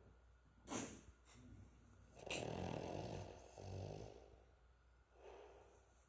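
A sleeping Cavalier King Charles Spaniel snoring with its nose right against a microphone. There is a short sharp puff of breath about a second in, then a long snore with a low rattle from about two to four seconds, and a weaker breath near the end.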